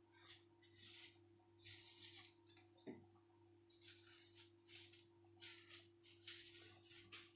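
Faint kitchen handling noises: several short rustles and scrapes and one click about three seconds in, over a steady low electrical hum.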